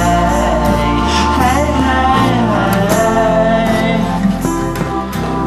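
Pop song playing, with a sung melody over the band.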